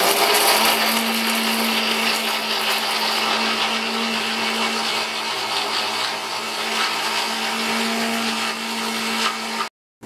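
Preethi mixer grinder with a stainless steel jar running at full speed, wet-grinding coconut, green chillies, cashews, raw rice and fennel with water into a paste. The motor's steady hum settles in about half a second in, and the sound cuts off abruptly near the end.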